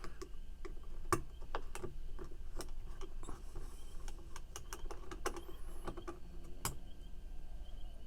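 Light, irregular metallic clicks and ticks, one or two a second, from a Torx driver and small screws being worked out of a titanium frame lock pocket knife during disassembly.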